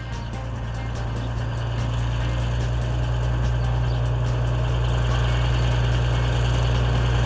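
Heavy truck engine running steadily with a deep low rumble, growing louder over the first couple of seconds.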